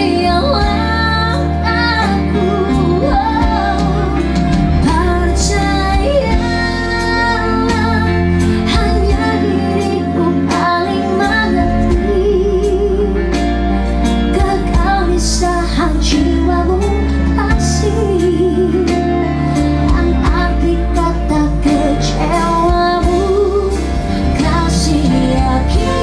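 A woman and a man singing a duet into microphones over a live band with electric guitar, her held notes wavering with vibrato.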